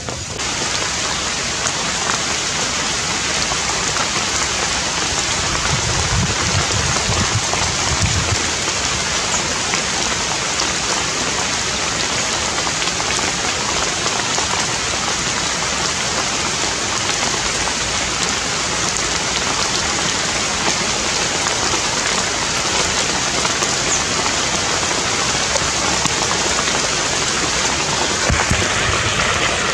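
Steady rain falling, an even hiss that does not let up, with a brief low rumble about six seconds in and again near the end.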